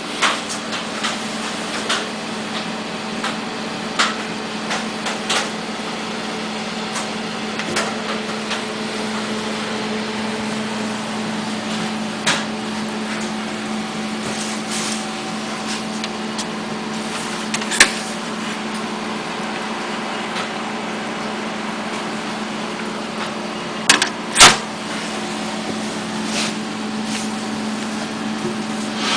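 Water-cooled desktop PC running: a steady hum from its cooling fans and pump over a constant hiss of moving air. A few sharp clicks and knocks cut in, the loudest about two-thirds of the way through.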